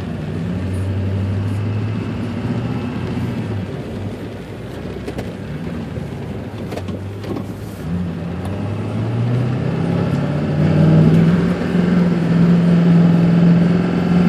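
A vehicle's engine, heard from inside the cab, runs steadily, then revs up from about eight seconds in and holds higher and louder to the end. Underneath is a steady rushing of floodwater flowing across the road.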